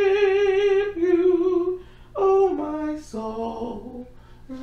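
A woman singing unaccompanied, drawing out the word "worship" in long held notes, with a breath about three seconds in and softer, lower notes near the end.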